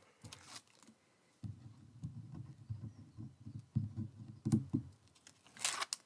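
Fingers and nails rubbing, tapping and picking at card stock on a cutting mat, working at the backing of double-sided tape strips. A short, sharper scrape comes near the end.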